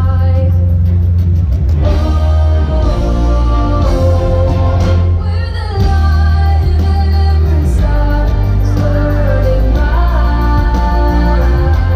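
Show soundtrack music with a singing voice over a heavy, sustained bass, played loud, dipping briefly a little before the middle.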